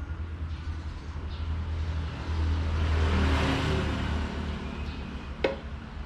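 A road vehicle passing, its noise swelling and fading over a steady low hum, with one sharp click a little before the end.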